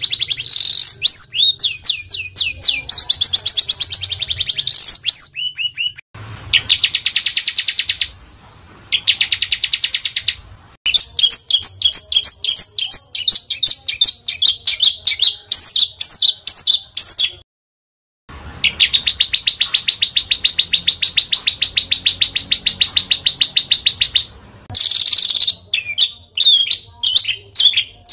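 Small songbird singing in dense, harsh phrases: fast, high-pitched trills and rapid runs of chips, broken by short pauses, with a silent gap of about a second a little past halfway.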